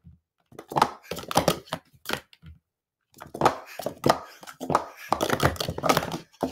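Plastic sport-stacking cups (Speed Stacks PS2X) being rapidly stacked and unstacked in a cycle. Quick runs of cups clacking together, with a short pause about two and a half seconds in, then a longer, denser run to the end.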